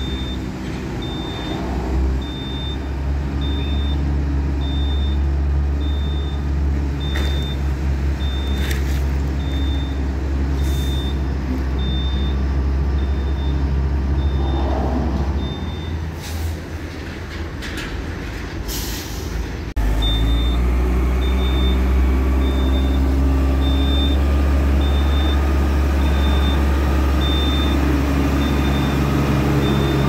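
Concrete mixer truck's diesel engine running steadily while its reversing alarm sounds a high beep roughly every three-quarters of a second. The beeping stops for several seconds partway through, while short hisses of air are heard. Then the engine and the beeping come back louder.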